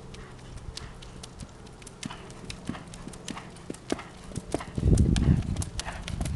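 Hoofbeats of a Saddlebred gelding under saddle on a dirt arena footing, a run of short irregular clicks as the horse goes by at a lively gait. About five seconds in there is a loud low rumble lasting about half a second as the horse comes close.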